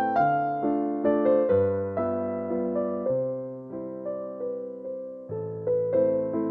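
Background music: soft piano or electric piano playing slow chords and melody notes, each struck and fading.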